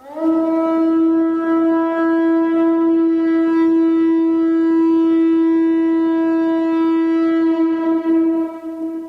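Conch shell trumpet blown in one long held note. It opens with a brief upward slide in pitch and wavers as the breath gives out near the end.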